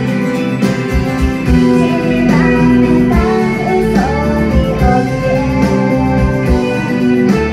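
Acoustic guitar strummed and picked in a live performance, with a woman's voice singing a few notes in the middle.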